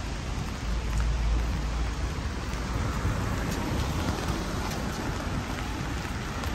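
Steady rain hissing on a wet city street, with a few faint drop ticks and a low rumble underneath that is strongest in the first second or so.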